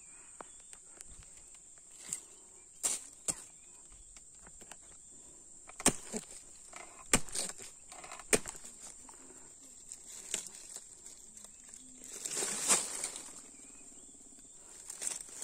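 Steady high-pitched drone of insects, broken by scattered sharp snaps and crackles of dry palm fronds and leaf litter being stepped on or handled, with a longer rustle about twelve seconds in.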